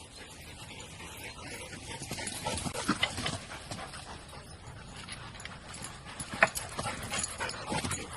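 An animal moving about: scattered taps and knocks, with one sharp click about six seconds in.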